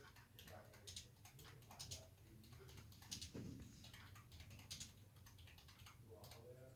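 Faint, irregular clicks over a low, steady hum.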